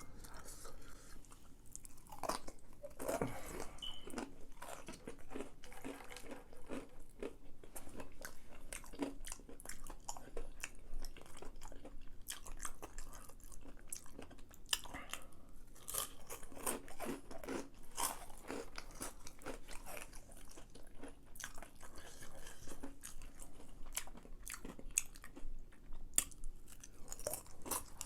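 Close-miked chewing of crispy fried chicken nuggets that are a little overdone, with many irregular crisp crunches.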